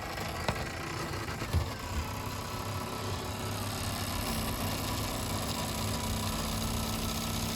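MSI MS-16W1 laptop's processor cooling fan running with a steady whir and whine: the noise fault the fan is being replaced for. A couple of light knocks in the first two seconds, and a lower tone joins about halfway through.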